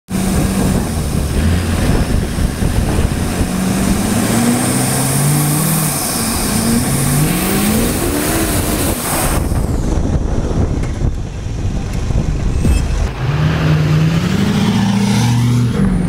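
Duramax LBZ 6.6-litre V8 turbodiesel in a Chevrolet Silverado with a 5-inch turbo-back exhaust and no muffler, accelerating hard: the engine note climbs in steps, revving up through the gears.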